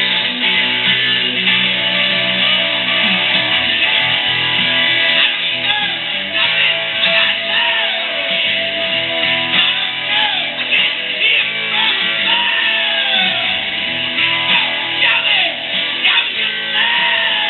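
Rock music with guitar, the guitar playing repeated bent notes that swoop up and fall back in pitch over a steady backing.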